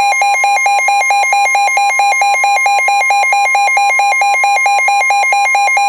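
Midland WR120B weather radio's alert alarm: a loud, rapid electronic beeping, about six pulses a second, over a steady single tone, signalling that a new severe thunderstorm warning is being received.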